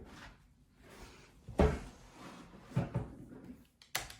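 A laptop being handled as it is opened and switched on: a dull thump about a second and a half in, two softer knocks near three seconds, and a sharp click near the end.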